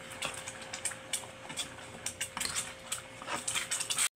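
A metal ladle stirring thick peanut sauce, scraping and clinking irregularly against the pot, over a faint steady hum.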